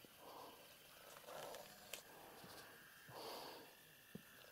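Near silence with three soft breaths close to the microphone, about a second apart, and a couple of faint clicks.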